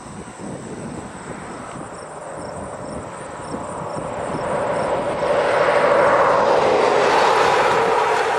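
Road traffic noise from a motor vehicle passing on the highway: a rushing sound that swells gradually, is loudest about two-thirds of the way through, then begins to ease.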